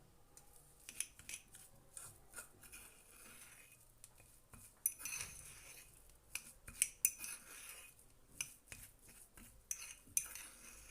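A spoon stirring a thick paste of ground sesame, ginger, lemon juice and olive oil in a bowl, scraping the bowl and clinking against its sides at an uneven pace.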